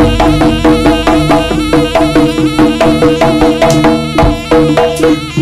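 Javanese jaranan ensemble playing: drums and pitched bronze gong-chimes struck in a fast, steady rhythm of repeated notes.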